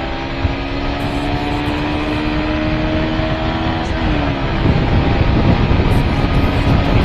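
Motorcycle engine running at a steady note while riding, with wind rushing on the microphone. About four and a half seconds in, the steady note drops away and the rushing noise grows louder.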